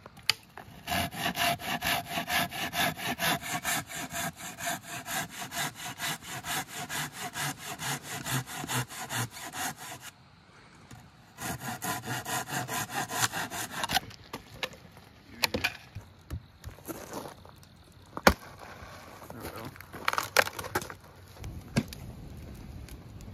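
Curved pruning saw cutting through a dead log, about three rasping strokes a second, with a pause about ten seconds in before a second short run of strokes. After that, a campfire crackling with scattered sharp pops.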